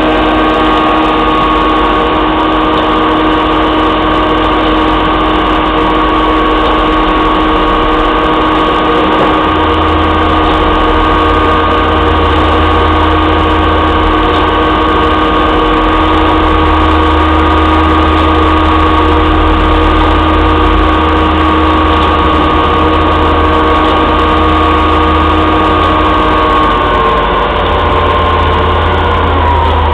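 Heavy diesel engine of a concrete mixer truck running steadily at raised revs. Its pitch slides down over the last few seconds as the revs drop.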